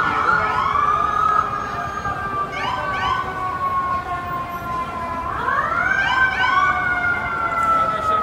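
Emergency vehicle sirens: a long wail that falls slowly, sweeps up sharply about five seconds in, then falls slowly again, with short bursts of rapid yelping around three and six seconds in.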